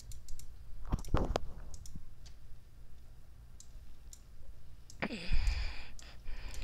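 Computer mouse clicking and a few keystrokes as values are entered in a software dialog: scattered short sharp clicks. Two louder breath-like noises from the person at the computer, about a second in and from about five seconds in, stand out above the clicks.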